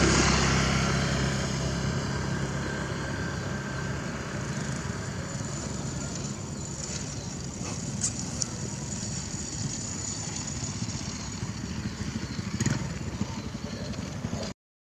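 A motor vehicle engine passes close by, loudest at the start and fading away over the first two or three seconds. Steady outdoor background noise with a few faint clicks follows, and the sound cuts out briefly just before the end.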